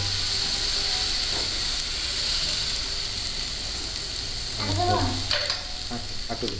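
Chicken and cauliflower soup cooking in a wok just after water has been added, giving a steady sizzling hiss. A brief voice sound comes about five seconds in.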